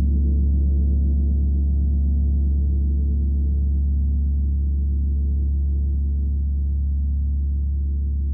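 A 32-inch Tree of Life gong ringing out with a deep, steady low hum and a cluster of wavering overtones, slowly fading with its long sustain.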